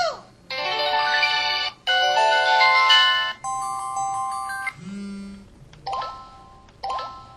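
Samsung SCH-E560 mobile phone playing a string of short synthesized sound effects one after another: a falling swoop, two chiming chords each about a second and a half long, a quick run of notes, a brief low tone, then two short blips near the end.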